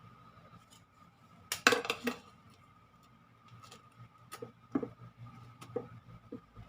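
Kitchenware clinking and clattering: a short burst of clatter about a second and a half in, then scattered light taps and clicks, over a faint steady hum.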